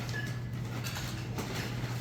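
Faint rustling and light handling noises from gift packaging over a steady low hum.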